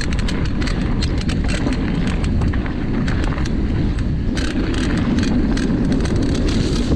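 Mountain bike ridden fast down a dirt trail: wind rushing over the microphone and tyres rolling, with frequent clicks and rattles from the bike.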